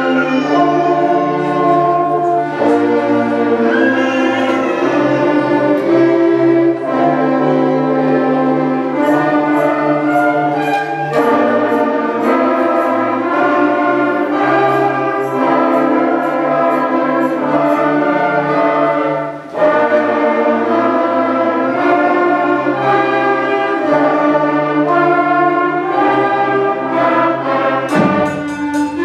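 Elementary school concert band of woodwinds and brass (saxophones, clarinets, flutes, trombones) playing a piece in sustained, changing chords, with a brief break about two-thirds of the way through and a few sharp hits near the end.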